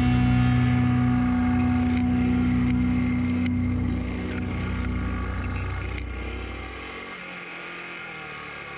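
Honda ATC 110 three-wheeler's small single-cylinder four-stroke engine running at a steady speed, then the revs fall away about halfway through and it runs much quieter near the end.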